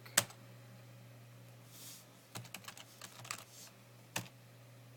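Computer keyboard keystrokes. A single sharp key press comes right at the start, a quick run of keystrokes follows about halfway through, and another single sharp press comes near the end. A faint steady low hum runs underneath.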